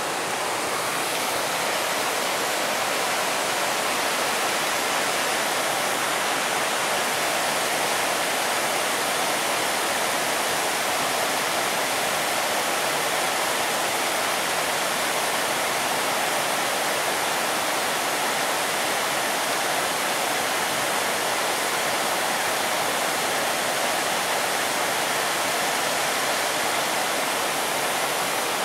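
River water rushing steadily over rocky rapids, an even, unbroken rush of white water.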